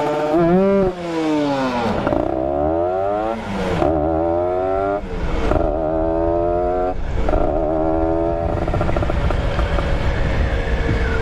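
Motorcycle engine accelerating up through the gears: the engine note climbs, drops back briefly at each upshift about every one and a half seconds, four or five times, then holds a steady cruise for the last few seconds.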